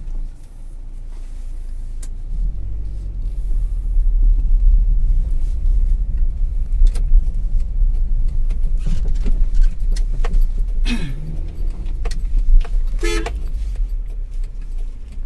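Maruti Suzuki Ritz driving, heard from inside the cabin: a steady low engine and road rumble that grows louder about two seconds in as the car gets moving, with scattered light clicks and rattles. Near the end, a brief horn-like toot.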